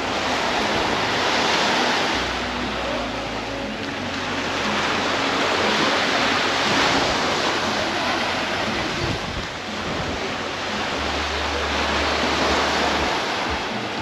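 Small waves breaking and washing up a sandy shore, the surf swelling and fading about every five seconds.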